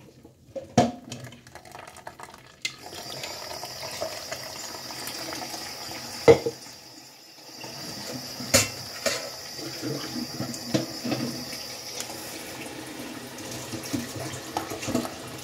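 Blended kale and parsley juice trickling through a mesh sieve into a glass measuring jug, as the pulp is poured in from a blender cup. A few sharp knocks of the cup and sieve against the glass stand out, the loudest about six and eight and a half seconds in.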